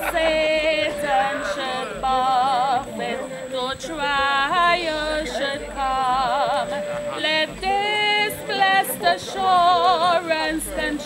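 Singing voice holding long notes with a strong, wide vibrato, in short phrases with brief breaks between them.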